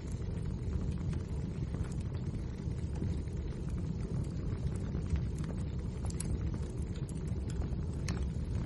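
Wood fire burning in a fireplace: a steady low rumble of the flames with irregular small crackles and pops from the logs.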